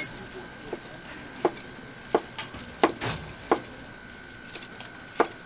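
Large kitchen knife chopping boiled pork head meat, the blade striking a white plastic cutting board in six sharp, irregularly spaced chops, with a longer pause before the last one.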